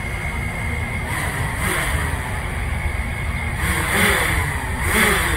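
DJI Mavic Air quadcopter in flight, its propellers giving a steady high whine over wind rumble on the microphone. The sound swells and bends in pitch about a second and a half in and twice near the end as the drone speeds up.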